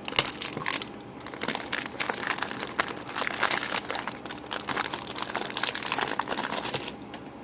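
Megaminx puzzle being turned rapidly by hand, a dense run of plastic clicks and clacks from its layers that stops about seven seconds in.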